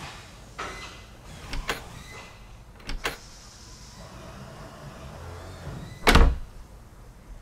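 Light metallic clicks and clacks of a small barrel bolt sliding, a few in the first three seconds, then one loud thud about six seconds in.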